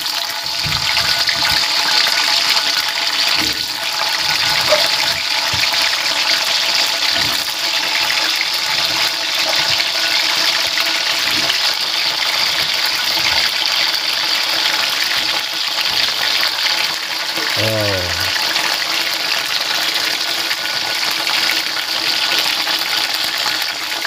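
Eggplant frying in hot cooking oil in a wok: a steady, loud sizzle. About 18 seconds in, a short sound falls in pitch.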